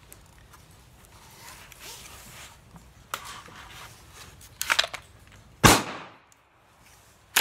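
Clicks and knocks of a KCI 100-round drum magazine being handled and seated in an AR-15's magazine well. About three-quarters of the way through comes one loud gunshot with a ringing tail, followed by another sharp crack at the very end.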